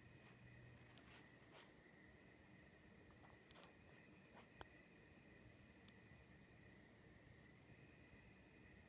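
Faint, steady chirping of night insects, with a few soft clicks, the sharpest about four and a half seconds in.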